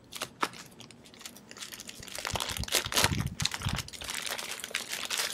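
Plastic zip-lock bag crinkling and crackling as it is handled and opened by hand. The crackles are sparse at first and get busier about two seconds in.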